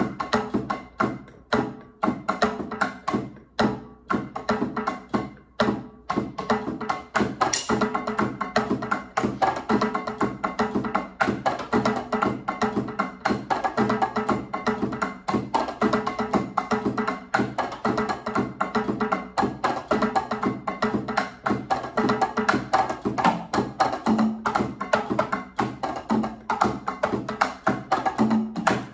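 Electronic drum kit played with sticks, sounding Latin percussion voices: wood-block and hand-drum-like hits in a fast rhythm. The strikes are spaced out for the first several seconds, then settle into a busy, dense pattern.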